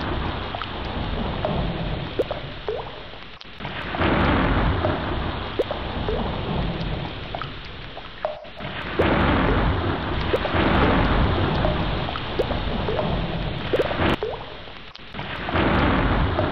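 Heavy rain hissing with scattered drips over a low rumble of thunder. The rain swells loud about every five seconds, with a brief drop just before each swell.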